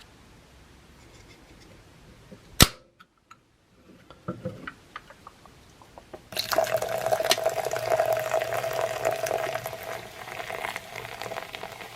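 A single sharp snap, a few light clicks, then from about six seconds in Coca-Cola pouring into a container over brass clock parts and fizzing steadily.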